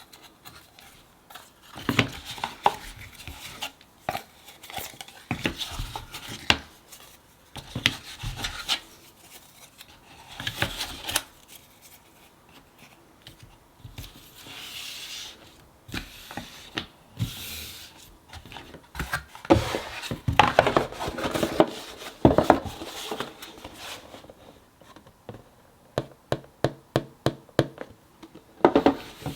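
Thick cardboard jigsaw puzzle pieces being handled and fitted together. There are irregular taps and clicks as pieces are set down and pressed into place, and stretches of sliding and rubbing. Near the end comes a quick run of light taps, about five a second.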